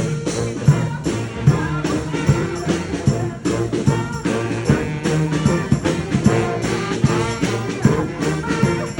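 A street brass band playing live: brass horns holding and moving between pitched notes over drum hits on a steady beat.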